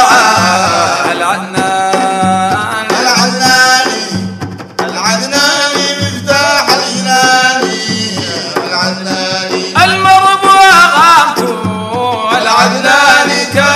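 Sudanese madeeh, a Sufi praise song to the Prophet, sung by men over a steady drum beat, the singing drawn out in long, wavering lines with short breaks.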